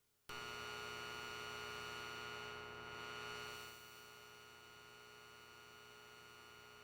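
Quiet electronic drone of many steady held tones over a hiss, cutting in suddenly right at the start and sinking a little in level about halfway through.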